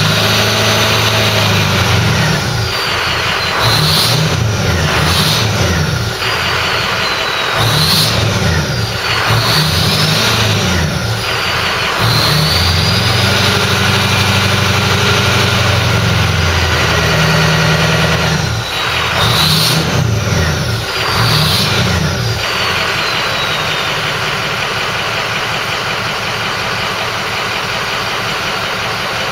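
Ford 6.0 Powerstroke V8 diesel in an F-250, breathing through a 5-inch turbo-back exhaust with an aftermarket downpipe, revved again and again. The turbo whistles up and falls away with each rev. From about two-thirds of the way through it settles to a steady idle.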